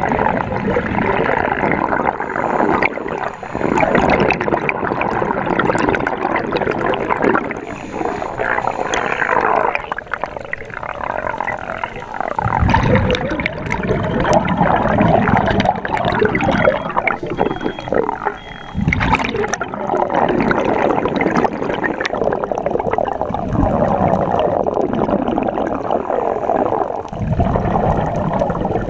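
Underwater scuba sound: a diver's regulator breathing, with exhaled bubbles gurgling past in surges a few times over a steady watery wash.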